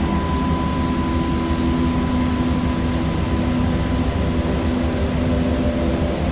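Steady low rush of a flowing river, unbroken throughout, with a steady hum running through it.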